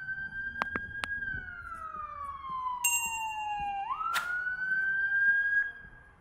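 Emergency vehicle siren in wail mode: a high tone that holds, slides slowly down for a couple of seconds, swings quickly back up about four seconds in, then fades out near the end. A few sharp clicks sound about a second in.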